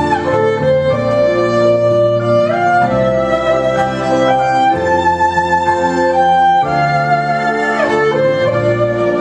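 Violin playing a slow, sustained melody with sliding notes, over held chords and a bass line.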